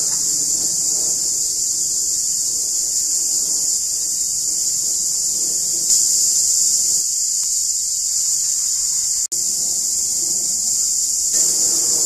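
Cicadas calling in chorus: a loud, steady, high-pitched drone that breaks off for an instant about nine seconds in.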